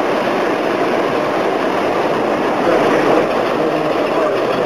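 American Flyer S gauge model trains running on the layout's track: a steady, continuous noise of small wheels on metal rails and the locomotives' motors.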